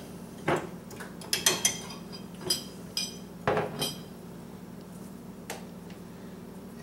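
Light clinks and taps of a utensil against dishware as sliced jalapeños are laid onto a bowl of chili. A run of clinks comes in the first four seconds and one more near the end, over a low steady hum.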